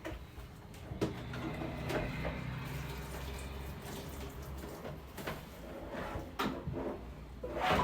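Washing up at a sink: water running and splashing while a refrigerator part is scrubbed, with scattered knocks and a louder clatter near the end.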